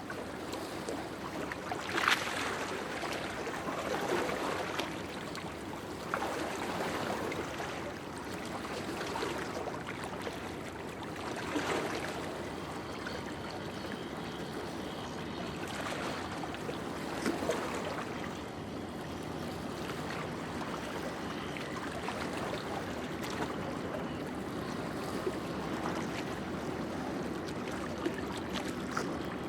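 Small lake waves lapping and splashing against the shore, a steady wash of water broken by irregular splashes, the sharpest about two seconds in.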